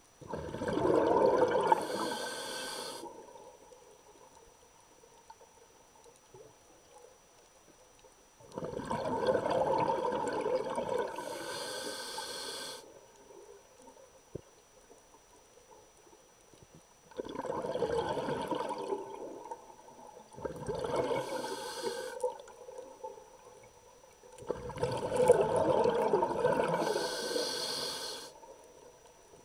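A scuba diver's exhaled breath bubbling out of the regulator, heard underwater through the camera housing. There are five bursts of bubbling, each one to four seconds long, with quiet gaps between them while the diver breathes in.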